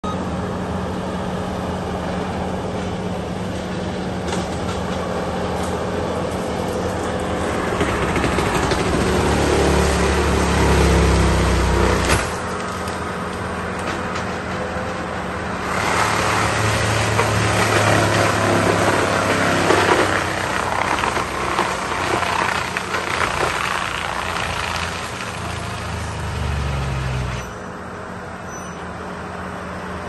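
Tracked forestry mulcher with a Fecon mulching head: its engine runs steadily while the spinning head grinds into brush in two louder spells, from about eight to twelve seconds in and from about sixteen to twenty-seven seconds in. Each spell cuts off abruptly.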